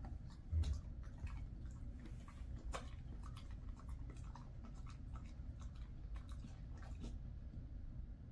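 Jindo dog chewing a piece of turkey jerky: faint, scattered crunching clicks over a low steady room hum.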